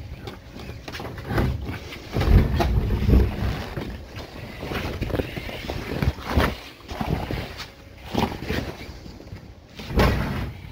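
Irregular bumps, scrapes and canvas rustling as a pop-top camper's pull-out bed is slid out, with a heavier rumbling knock about two seconds in.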